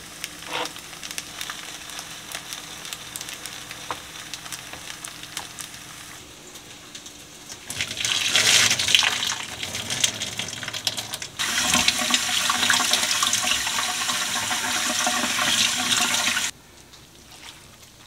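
Food sizzling quietly in a pan, then water rushing from a kitchen tap in two loud spells from about eight seconds in, shut off suddenly near the end.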